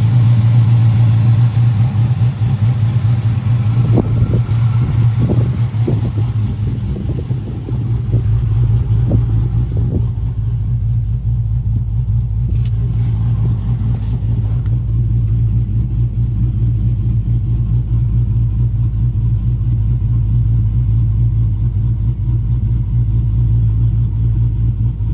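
Car engine running with a loud, steady low hum, with a few short clicks between about four and ten seconds in.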